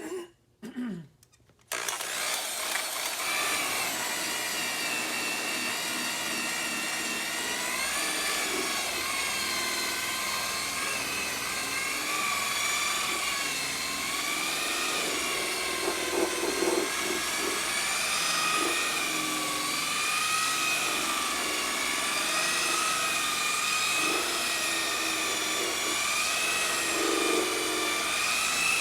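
Electric buffer starts up about two seconds in and runs steadily, its motor whine wavering slowly up and down in pitch as the polishing pad works compound over a plastic headlight lens.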